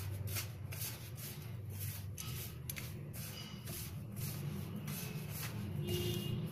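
A hand rubbing and mixing dry maize and wheat flour, with oil and spices, against a steel plate. Repeated scraping, rustling strokes come roughly two a second over a steady low hum.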